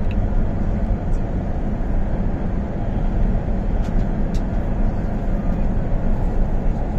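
In-cabin running noise of an MTR South Island Line S-Train under way: a steady low rumble from wheels and running gear, with a few faint clicks.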